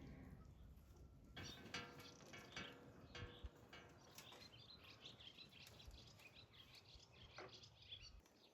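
Faint birdsong: small birds chirping and twittering in quick high notes.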